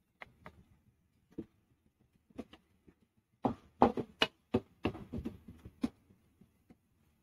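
Spatula scraping and knocking against a non-stick pan while stirring thick, sticky reduced milk and melted sugar for palkova: short irregular scrapes and clicks, a few at first and most of them bunched from about three and a half seconds in.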